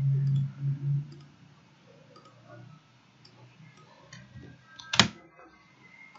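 Computer mouse clicks: faint scattered ticks, then one sharp, loud click about five seconds in. A low pulsing hum is heard during the first second and then breaks off.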